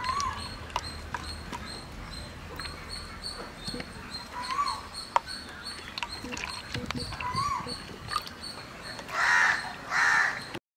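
A crow cawing twice in quick succession near the end, the loudest sound here, with a few short bird chirps earlier.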